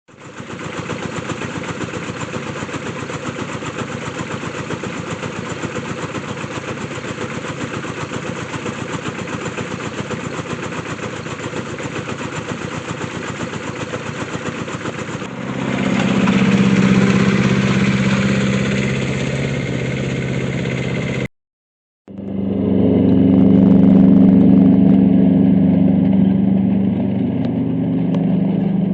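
7¼-inch gauge miniature railway locomotives running. The first half is a fast, even pulsing; after a cut comes a louder, steady engine hum with a deep tone. The sound drops out briefly about two-thirds of the way in, then the engine hum returns.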